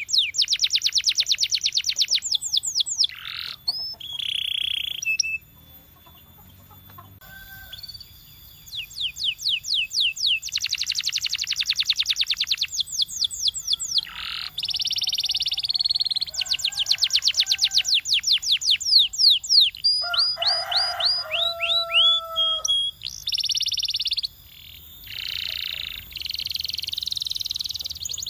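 Domestic canary singing: long runs of fast trills, each made of many quick notes repeated in a row, alternating with held rolling phrases. A quieter break of about two seconds comes near the six-second mark.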